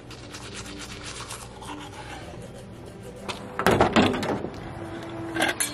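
Teeth being brushed with a toothbrush: fast, scratchy scrubbing strokes. About three and a half seconds in, the scrubbing gives way to a few loud knocks and clunks from handling a car door.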